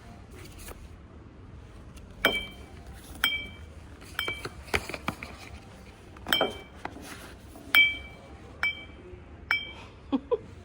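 Glass whiskey tumblers clinking against each other: about a dozen sharp clinks at uneven intervals, each ringing briefly at the same bright pitch.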